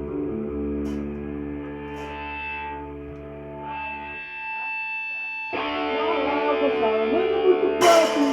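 Distorted electric guitar playing a rock song's intro in held, ringing chords, with a louder chord coming in about halfway through. Near the end a sharp hit with a cymbal crash marks the band coming in.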